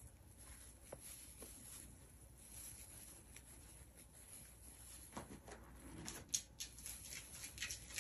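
Faint rustling of yarn and small scratchy clicks of a crochet hook as double crochet stitches are worked, with one sharper tick a little after the middle.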